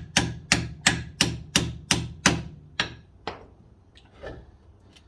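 Hammer tapping a rust-seized front wheel hub to drive it loose, in a steady run of sharp blows about three a second. The blows stop a little over two seconds in, followed by two lighter taps and one faint one.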